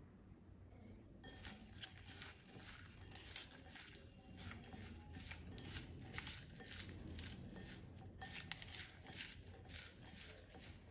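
Faint food-preparation sounds: a run of soft, scratchy strokes, two or three a second, starting about a second in.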